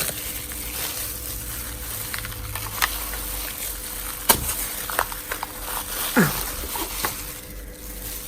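Steady low background hum with a few scattered light clicks and knocks, the loudest about four seconds in, and a short falling squeak about six seconds in.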